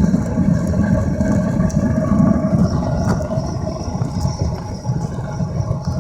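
Homemade used-motor-oil foundry burner running steadily with a low rumble.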